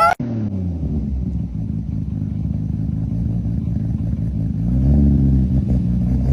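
Toyota 2JZ straight-six engine running at low revs, with one blip of the throttle about five seconds in that rises and falls back.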